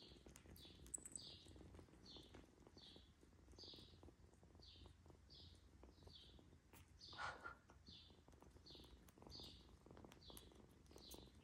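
Faint, high, short chirps repeating evenly about twice a second, with one short kitten mew about seven seconds in.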